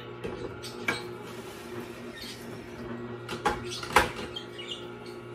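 Hard plastic knocks and clacks as the plunger and feed chute of a Tribest Green Star Elite juicer are handled, a few sharp strokes with the loudest about four seconds in, over a steady low hum.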